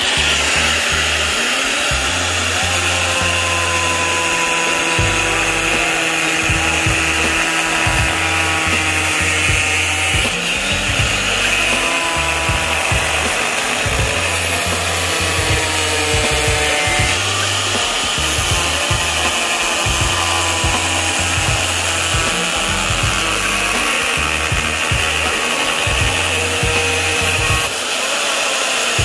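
Electric angle grinder with a thin cutting disc cutting through a flat sheet of PVC plastic. It comes up to full noise right at the start and keeps up a steady high whine and rasp as the disc works through the sheet.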